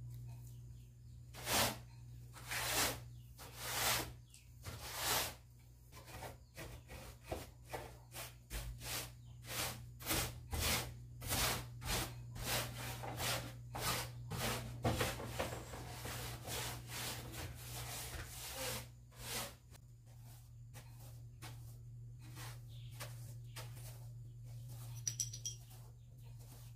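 Bristle broom sweeping a tiled floor: short swishing strokes, about one a second at first, coming faster and closer together in the middle, then lighter and less distinct near the end.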